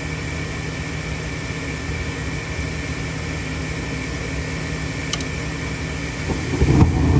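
Gas furnace running with its new induced draft motor humming steadily, one faint click about five seconds in. Near the end the sound grows louder and deeper as the burners light.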